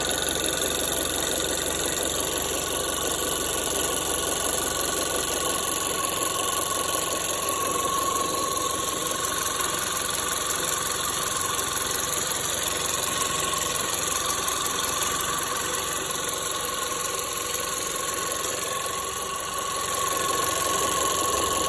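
Nissan Serena C26's MR20DD four-cylinder engine idling steadily with a metallic rattle, which a shop judged to come from a slack timing chain.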